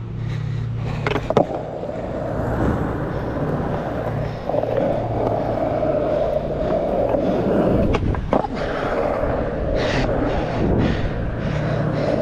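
Skateboard wheels rolling over rough asphalt with a steady rumble. The board knocks sharply on the pavement about a second in and twice around eight seconds in.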